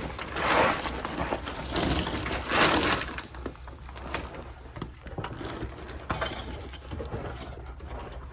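Scraping and clicking as the vault's cover and its screws are worked by hand. Two rough scrapes come in the first three seconds, followed by scattered light clicks and taps.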